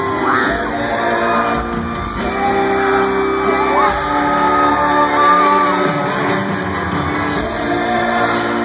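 Live concert music in a large arena: a singer's voice gliding over held keyboard and band chords, with shouts mixed in.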